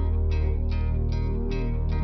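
Background music: plucked notes, about three a second, over a steady deep bass.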